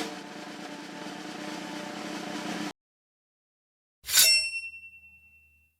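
An edited intro sound effect: a burst of hissy noise that cuts off abruptly, then, after a pause, a single struck ding whose high ringing tone fades away.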